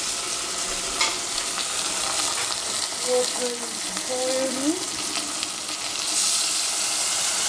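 Steady sizzling hiss of food cooking in pots on a gas stove, with a sharp clink about a second in. Near the end, hot water is poured from a kettle into a saucepan of bok choy and braised meat, and the hiss grows brighter and fuller.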